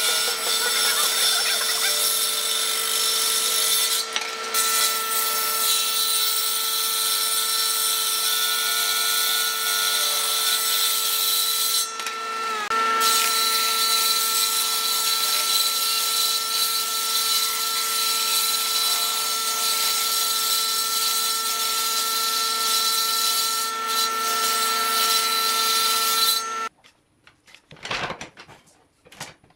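Table saw running with a steady whine as it rips thin strips of wood along the fence. Near the end the saw sound cuts off and loose wooden strips knock together on a worktable.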